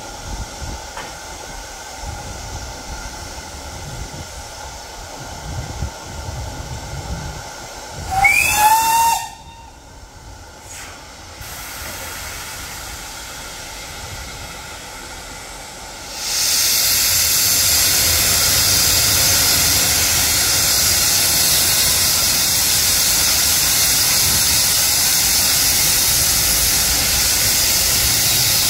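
LMS Stanier Mogul 2-6-0 steam locomotive No. 13268: a short whistle of about a second, its pitch bending up then down. About halfway through, a loud, steady hiss of escaping steam starts and keeps going.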